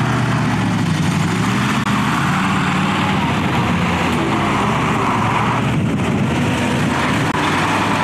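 Engine of a BM-21 Grad rocket launcher truck running steadily close by, its pitch wavering slightly, as the launcher moves into firing position.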